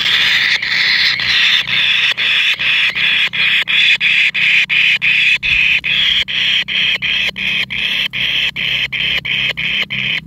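Kingfisher nestlings begging in a harsh, raspy chorus of rapid calls, about three a second, without pause.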